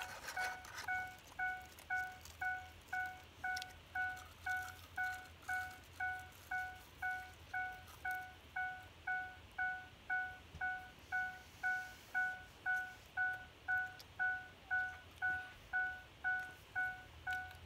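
Vehicle warning chime dinging steadily, one short note about twice a second, repeating without a break.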